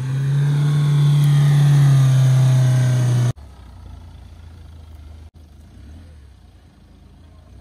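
Mahindra Thar 4x4's engine revving hard under load as it climbs a steep sandy slope, its pitch rising slightly for about three seconds. The sound then drops suddenly to a much quieter, steady low engine drone.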